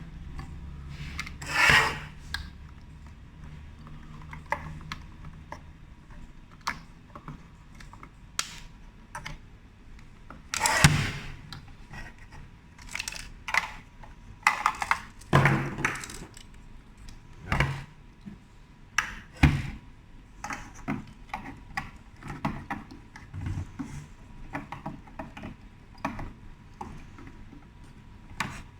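Irregular knocks, clicks and rubbing of parts and tools as a new PC board and sensor are fitted into a hand dryer's housing, the loudest knocks about two seconds in and about eleven seconds in.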